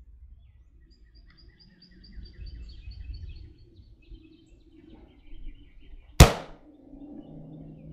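A single rifle shot from a 1942 Springfield Armory M1 Garand, a sharp crack about six seconds in with a brief ring after it. Birds chirp in repeated trills before the shot.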